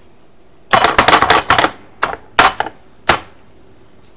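Chef's knife chopping diced onion on a plastic cutting board: a quick run of knife strikes about a second in, then a few single chops.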